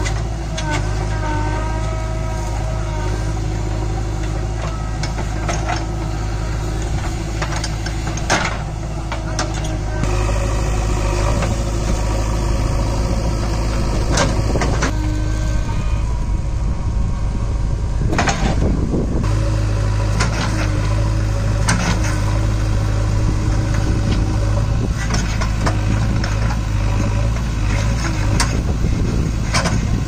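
JCB 3DX backhoe loader's diesel engine running steadily while the backhoe arm digs out a tree stump. The engine gets louder about ten seconds in as the hydraulics work under load, with scattered knocks from the bucket and roots.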